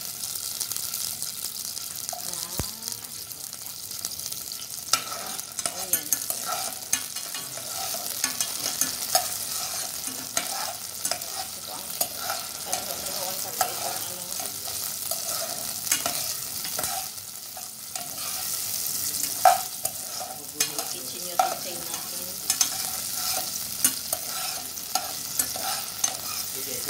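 Garlic cloves sizzling in hot olive oil in a pan, with a steady hiss. A utensil stirring them makes frequent light clicks and knocks against the pan.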